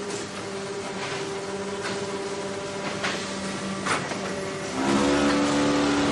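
QT4-20C concrete block making machine running: a steady motor hum broken by a few sharp clanks of moving parts, then about five seconds in a louder, deeper machine hum starts suddenly and holds.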